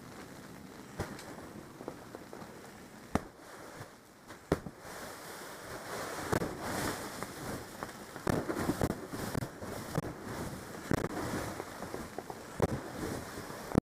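Heavy snow being knocked and scraped away in irregular crunching, crackling bursts, with a few sharp knocks, over a steady hiss of wind.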